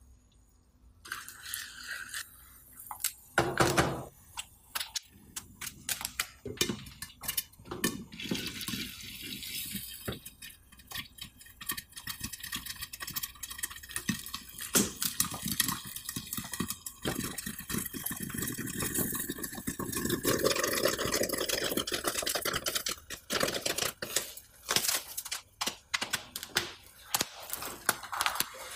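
Popcorn kernels heating in oil in a frying pan under a glass lid: a loud clatter about three and a half seconds in, a sizzle, then many sharp pops that grow into a dense crackle of popping.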